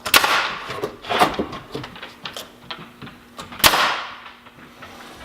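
Workbench assembly: three loud knocks of wood and tools, each with a short ringing tail, about a second and then two and a half seconds apart, among smaller clicks and taps.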